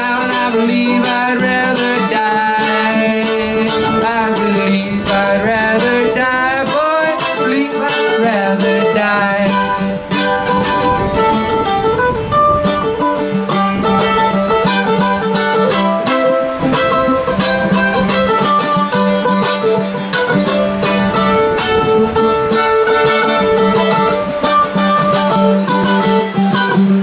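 Plucked-string acoustic music led by guitar. A melody line slides and bends in pitch through the first several seconds, then settles into steadier held notes over a repeating low bass note.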